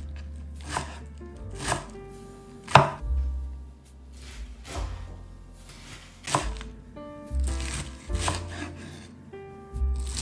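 Chef's knife slicing a wedge of young cabbage into thin shreds on a wooden cutting board, in separate sharp strokes roughly once a second.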